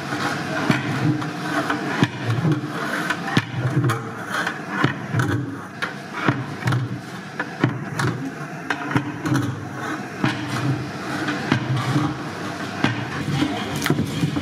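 Irregular clanks and knocks of steel cooking pots against a large haleem cauldron, with scraping, over a steady background din.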